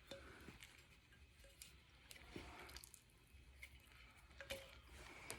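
Faint scratches and a few small clicks from fingers picking at the wax-sealed top of a Knob Creek rye whiskey bottle. The wax is not giving way easily.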